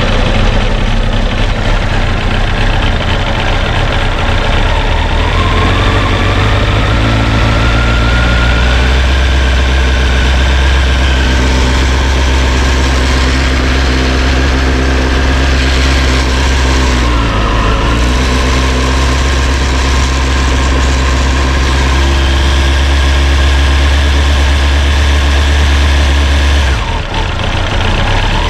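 Honda CBR929RR inline-four engine idling steadily, with a thin high-pitched whine running over it that rises a few seconds in and wavers with the engine about two-thirds of the way through. The shop suspects a stiff water pump as the cause of the engine's harsh high metallic noise.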